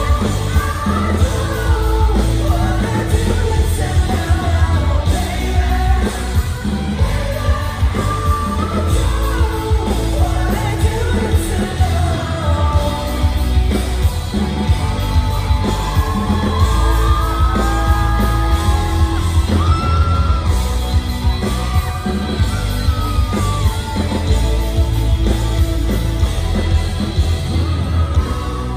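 Rock band playing live with a male lead vocal over heavy bass, drums and synths, heard from the audience in a large hall.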